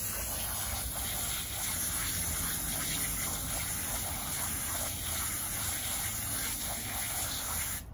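Garden hose spray nozzle jetting water onto a concrete sidewalk, a steady hiss that cuts off suddenly at the very end.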